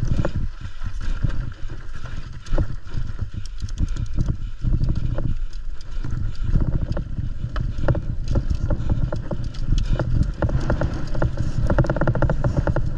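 Mountain bike descending a rough trail at race speed: the frame, chain and components rattle and clatter over the bumps, with wind buffeting the microphone underneath.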